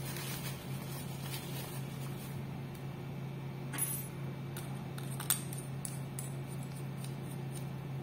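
Quiet handling of a Liseur 985 stainless-steel fountain pen: a cloth rubs over the freshly inked nib section, then a few small clicks and taps as the metal barrel is picked up and fitted back on. Underneath is a steady low hum.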